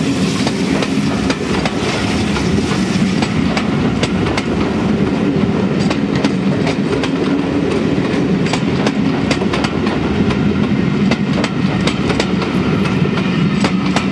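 Lord Nelson class 4-6-0 steam locomotive 850 pulling away with its train, passing close by as its coaches follow, wheels clicking over the rail joints in a steady loud rumble.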